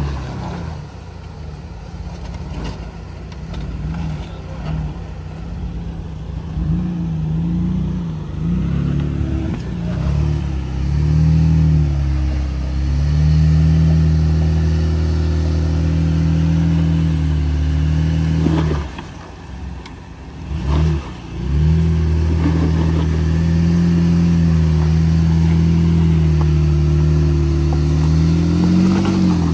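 Off-road vehicle's engine working over a rock obstacle, its pitch rising and falling with the throttle, then held steadier; it drops away briefly about two-thirds of the way through before picking up again.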